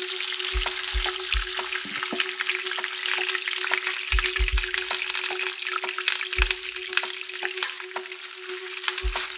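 Food sizzling and crackling in a hot pan, a dense run of tiny pops throughout, over a steady low hum, with a few soft low thumps.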